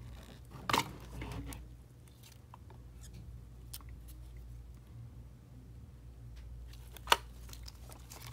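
Plastic external ink tank handled with gloved hands: light rustling and scraping with two sharp knocks, one about a second in and a louder one near the end.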